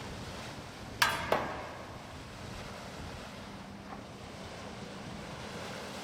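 Steady wash of surf and wind with a low, steady hum underneath. About a second in come two sharp knocks in quick succession that ring briefly, and a fainter knock follows near four seconds.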